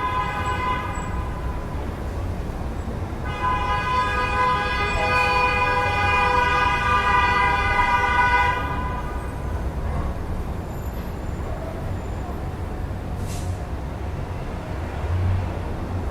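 City street traffic rumbling at night, with a long, steady vehicle horn blast from about three seconds in to past eight seconds, and a shorter one at the very start.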